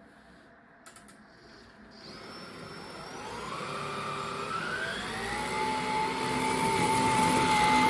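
Bosch Unlimited 7 ProHygienic Aqua cordless vacuum cleaner being switched on: a couple of clicks about a second in, then the motor spins up, its whine rising in pitch and growing louder for a few seconds before settling into a steady high whine.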